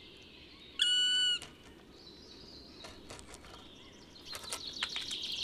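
Black woodpecker giving one long, even-pitched call about a second in, followed by a few faint taps and, near the end, a run of quick taps.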